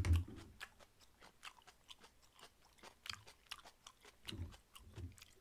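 Soft, close-miked chewing of grilled pork jowl, with scattered small wet mouth clicks and a few low mouth sounds near the end.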